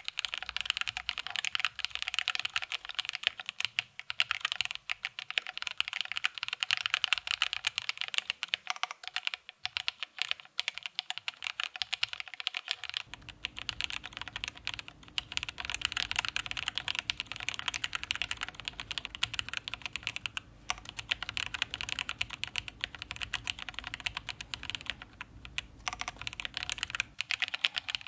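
Fast, continuous typing on a Xikii S98 gasket-mounted mechanical keyboard with Hey Switches (nylon housings, POM stems), a polycarbonate plate and GMK Sloth keycaps: a dense run of keystroke clicks with only brief pauses.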